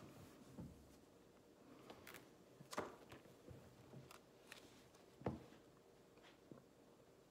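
Plastic sleeve pages of a trading-card album being handled and turned: faint rustling with a few short clicks, the two loudest about three and five seconds in, over otherwise near-silent room tone.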